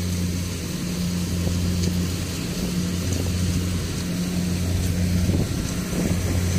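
Toyota Hilux Tiger pickup's engine idling steadily, an even low hum.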